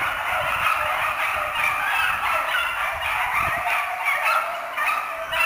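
A pack of beagles giving tongue together, a dense unbroken chorus of overlapping baying: the sound of hounds running a scent line.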